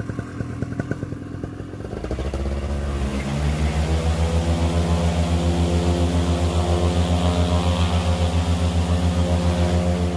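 Moster 185 single-cylinder two-stroke paramotor engine running at an uneven idle, then picking up about two seconds in and settling into a steady, smoother fast idle as it warms up after a cold start.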